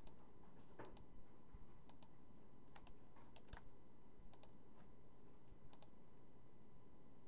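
Scattered clicks from a computer mouse and keyboard, a few every second or so, some in quick pairs, over a faint steady hum.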